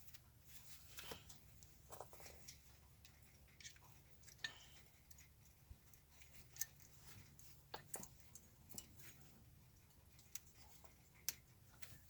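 Faint, scattered clicks and light taps of small parts and tools being handled during brake work, over a low steady hum. The clicks come irregularly, about a dozen in all, and the sharpest fall about halfway through and near the end.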